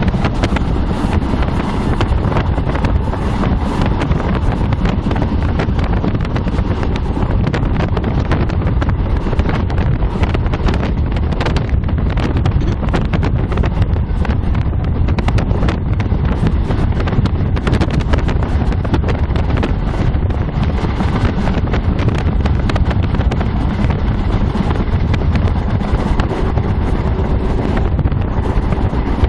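Steady rumble of a passenger train running along the line, with wind buffeting the phone's microphone.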